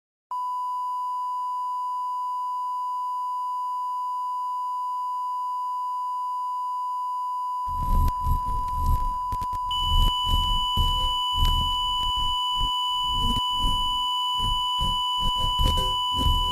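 A steady electronic sine tone, like a test-tone beep, held without change; about eight seconds in, irregular low rumbling and knocking noise comes in beneath it, and a second, higher steady tone joins about two seconds later.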